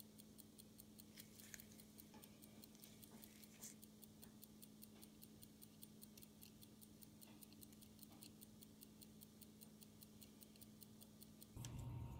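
Faint, fast, even ticking of a running antique pocket watch movement, about five ticks a second, with a few light clicks from brass tweezers setting the minute and hour wheels. Near the end a louder low hum comes in.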